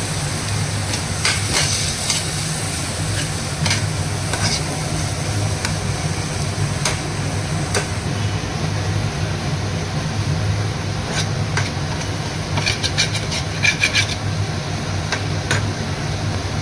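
A steel spoon stirring and scraping besan-coated chopped green chillies in a frying pan, with scattered scrapes and taps and a quick run of them about thirteen seconds in. A faint sizzle and a low steady hum sit underneath.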